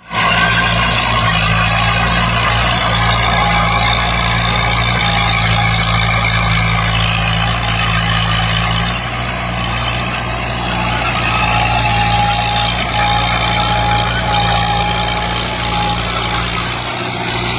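Diesel engine of a classic Fiat tractor running steadily, a continuous low engine note that eases slightly about halfway through.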